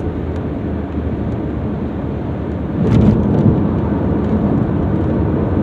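Steady low rumbling noise, growing louder about three seconds in.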